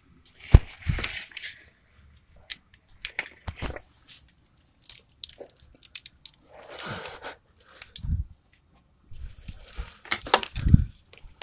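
Irregular clicks, rustles and low thumps as a hand handles a dog and its collar right at the microphone. There are scattered sharp clicks with several dull knocks, the loudest about half a second in and again near the end.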